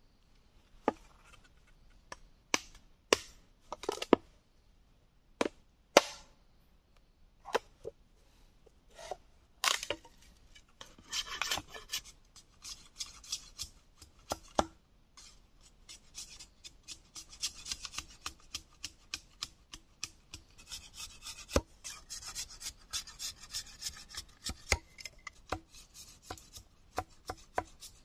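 Knife blade working green bamboo: about a dozen separate sharp chopping strikes, roughly a second apart. Then, from about ten seconds in, quick scraping strokes, several a second, as the blade shaves and whittles a thin bamboo strip.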